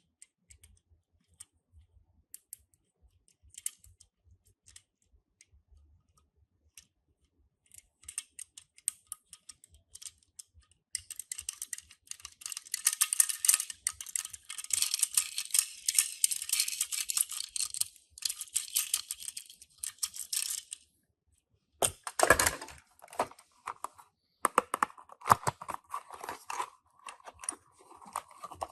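Tomica die-cast mini cars and their packaging being handled. First come scattered small clicks and clinks. Then about ten seconds of dense crinkling and rustling, like a box or plastic wrapping being opened, and near the end more clicks and rustling.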